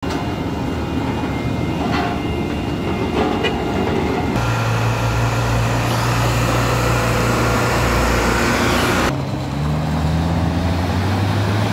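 Heavy diesel truck engines running with a steady low drone, in three stretches that change abruptly about four and nine seconds in.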